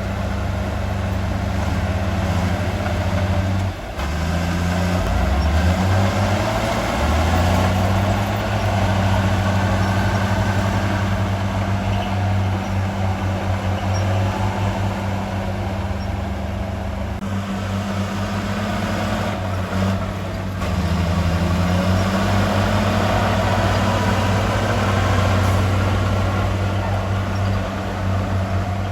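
Heavy diesel engine of earthmoving machinery running under varying load, its pitch rising and falling as it is worked, with two brief drops about four seconds in and near twenty seconds in.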